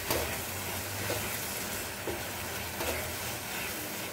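Thick green mango chutney sizzling as it cooks down to a jam-like consistency in a nonstick pan over a high flame. A wooden spatula stirs it and scrapes the pan a few times.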